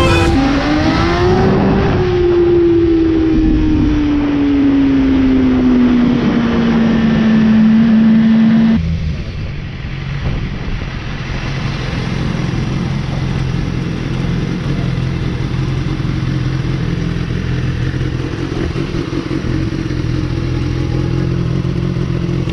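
2012 BMW S1000RR's inline-four engine heard from on the bike with wind rush, its note falling steadily as the bike slows. About nine seconds in it drops abruptly to a steady, even idle.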